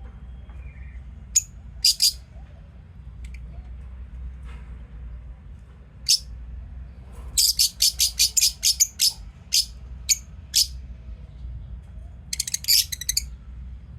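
Lovebirds chirping in short, sharp, high-pitched calls: a couple of chirps early, then a rapid run of about a dozen midway, a few single chirps, and a quick dense burst near the end.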